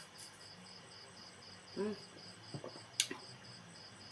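Cricket chirping in even high-pitched pulses, about four a second, with a short murmur from a voice near the middle and a sharp click about three seconds in.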